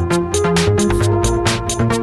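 Electronic dance music with a steady beat of about four drum hits a second over a heavy bass line and sustained synth tones, playing for the catwalk.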